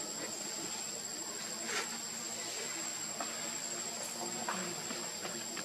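Forest insects droning steadily with a constant high-pitched whine, and a brief sharper sound about two seconds in.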